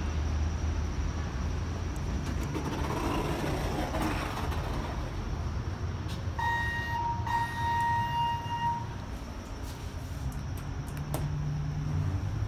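Passenger elevator with a steady low hum throughout, and a stretch of door and movement noise early on as the doors open. About six seconds in, a steady electronic beep sounds, briefly broken once, for about two and a half seconds. A single click comes near the end.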